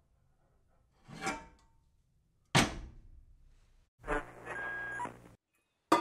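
Empty metal kettle knocked about on a stove. A short scrape about a second in, then a sharp clank. From about four seconds a longer rattling scrape with a ringing tone cuts off suddenly, and a second sharp clank comes near the end.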